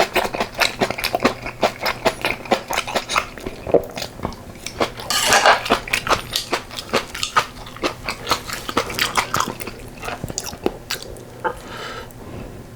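Close-up eating sounds: chewing and biting of yukgaejang with rice and geotjeori kimchi, a dense run of quick wet mouth clicks, with a few utensil clinks against the bowl and a louder, hissier stretch about five seconds in.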